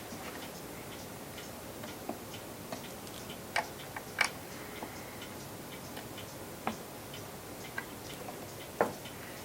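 Light, irregular clicks and taps of a screwdriver and hands working screws into the back panel of a wooden clock case, the screws being snugged up and then backed off. The clicks come at uneven intervals, with the sharpest about four seconds in and one just before the end.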